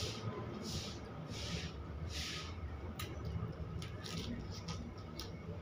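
Close-up eating sounds: a man chewing and slurping instant noodles and prawn. Short hissy sounds come about once a second in the first half, with a few sharp clicks later.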